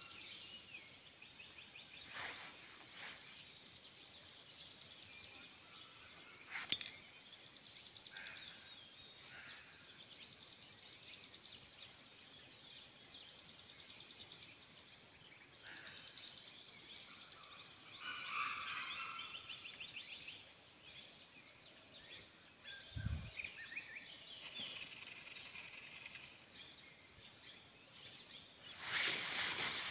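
Forest ambience: a steady high-pitched hum with scattered small bird calls, a cluster of them a little past the middle. There are a few brief rustles, a sharp click, and a soft low thump.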